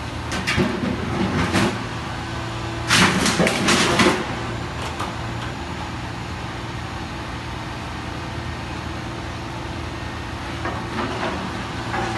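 Grab lorry's diesel engine running steadily while its crane-mounted clamshell grab picks up rubble. About three seconds in there is a loud burst of clattering and scraping as the grab bites into the debris. More clatter comes near the end as the load drops into the tipper body.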